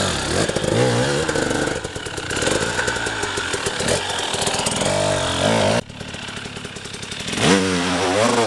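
Enduro dirt bike engine revving up and down as the bike pulls away and climbs a steep leafy slope. The sound drops off suddenly a little before six seconds in, and the revs rise again near the end.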